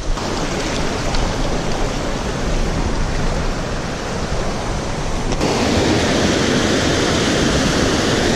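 Rushing water, a steady loud hiss like a waterfall or fast mountain stream, its tone shifting about five seconds in.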